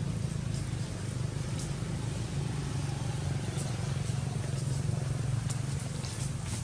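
A steady low engine hum, like a motor running nearby, with a few faint scattered ticks over it.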